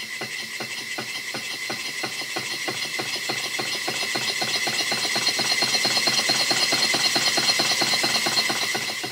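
Large old twin-cylinder model steam engine running on compressed air, its crankshaft picking up speed, with a rapid, even knock on every turn, the severe knock the owner has yet to trace. A steady high hiss of air runs over it, and the knocking grows louder over the first half.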